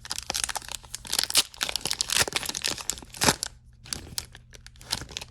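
Foil wrapper of a hockey trading-card pack being torn open and crinkled, a dense crackling for about three and a half seconds that thins to a few softer rustles near the end.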